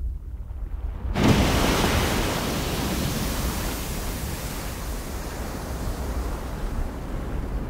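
Rushing outdoor ambience noise over a low steady rumble, with a sudden loud surge about a second in that slowly fades.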